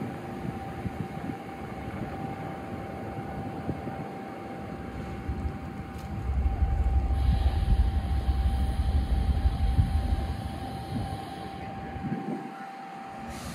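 Railway locomotive standing at a station, with a steady high whine and a background rumble that grows much louder for several seconds in the middle before easing off.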